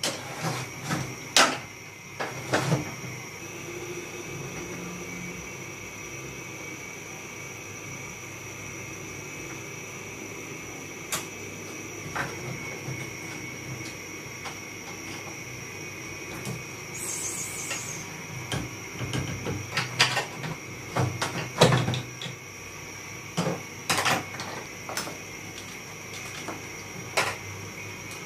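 Plastic clicks and knocks from parts of a split-type air conditioner's indoor unit being handled and taken apart, scattered and irregular, busiest and loudest near the end.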